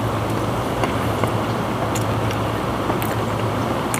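Steady low rumbling background noise with a constant low hum, and a few faint clicks over it.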